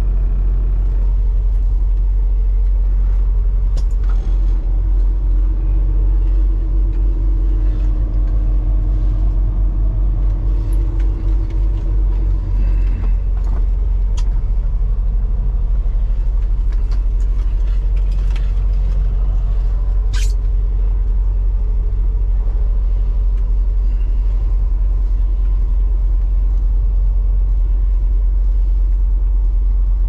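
Semi-truck's diesel engine running, heard from inside the cab as a steady low rumble; an extra hum rises above it for several seconds a few seconds in. A brief high hiss comes about twenty seconds in.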